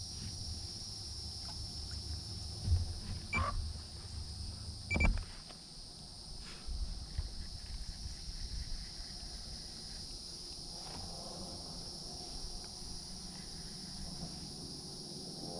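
Insects chirping in a steady, high-pitched chorus. A few short knocks come about three to five seconds in.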